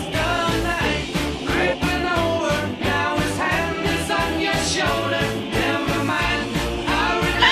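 Pop-rock music with a steady beat and a melody over it.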